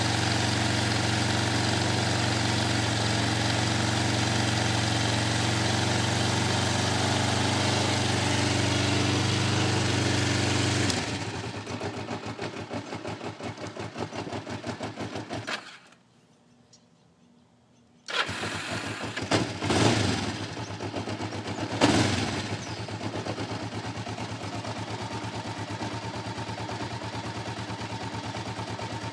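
Kawasaki Ninja 500 (EX500) parallel-twin engine idling cold on part choke. Its fast, steady idle falls away suddenly about eleven seconds in, and the engine cuts out for about two seconds. It then starts again, revs up briefly a few times, and settles into a lower, steadier idle. This unstable idle and cutting out is what the owner suspects is a carburettor problem.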